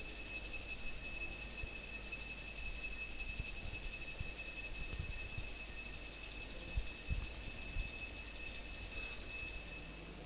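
Altar bell rung without a break during the elevation of the host at the consecration of the Mass: a steady, high ringing that stops shortly before the end.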